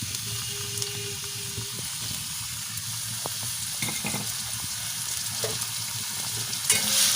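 Chopped onion sizzling in a little hot refined oil in a pan, with a spatula stirring and scraping against it now and then. The sizzling gets louder near the end.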